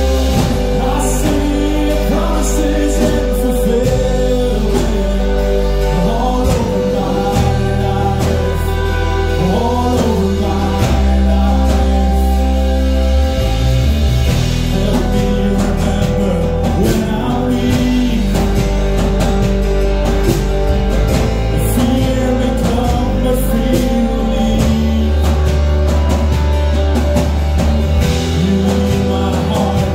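Worship band playing a contemporary worship song: a man singing lead over electric and acoustic guitars, bass guitar and drums.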